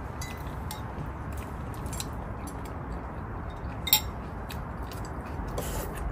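Chopsticks and spoons clinking lightly against ceramic bowls during a meal, with one sharper clink about four seconds in, over a steady low background rumble.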